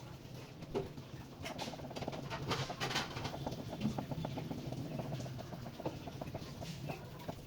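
Chickens clucking, with scattered short clicks.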